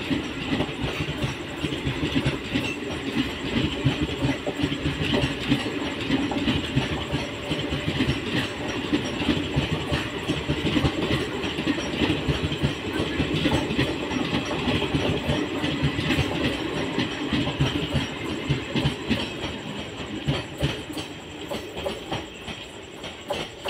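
Passenger express coaches rolling past, their wheels clattering steadily over the rail joints. The sound eases off near the end as the last coach goes by.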